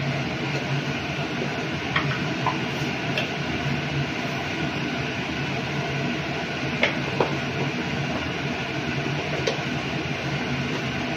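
Steady rushing noise of a lit gas stove burner under an aluminium pan of milk heating toward the boil, with a few faint clicks as loose tea leaves are shaken in.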